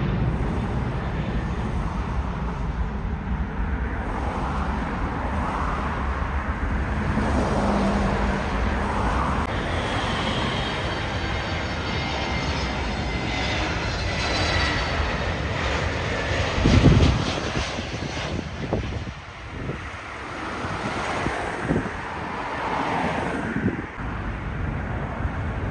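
Jet airliner engines running steadily as a plane passes, with a faint high whine in the middle. A sudden loud thump comes about two-thirds of the way through.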